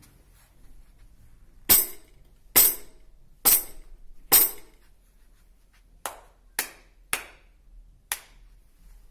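Knocking tapped out as a rhythm in a knocking game: four loud, evenly spaced knocks about a second apart, then after a pause four softer ones, the last set a little apart from the rest.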